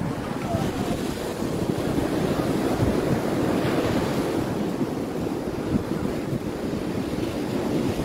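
Wind buffeting the phone's microphone over the steady wash of ocean surf breaking on a sandy beach.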